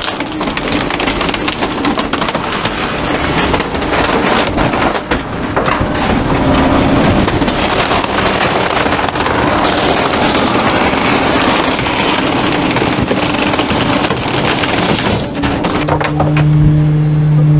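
Rear-loader garbage truck's packer blade running a compaction cycle, crushing broken wood and bulky junk in the hopper with a dense crackling over a steady hydraulic and engine hum. Near the end the crackling dies away and the steady hum stands out.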